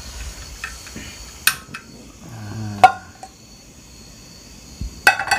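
Cooking pots and utensils clinking and knocking a few sharp times, the loudest about three seconds in, with a steady insect trill behind.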